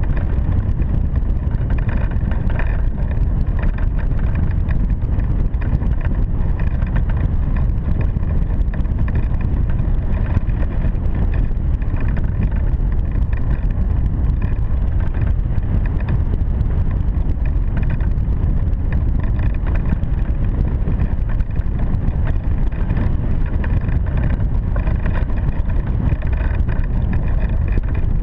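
Steady, loud rush of flight wind buffeting the microphone of a camera mounted on a hang glider in flight, heaviest in a deep rumble and unbroken throughout.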